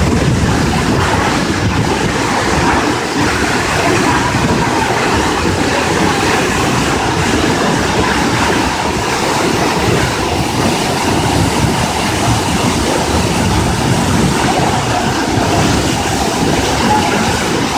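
Waterfall rushing: a steady, loud wash of falling and splashing water.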